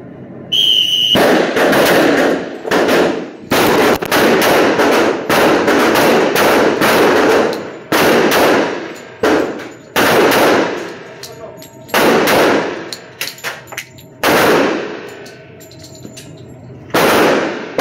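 A short whistle blast, then many semi-automatic pistol shots from several shooters firing at once on an indoor range. The shots come irregularly and sometimes overlap, and each report echoes.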